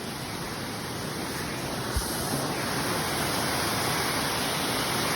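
Steady rushing of a waterfall, growing slightly louder, with one brief low thump about two seconds in.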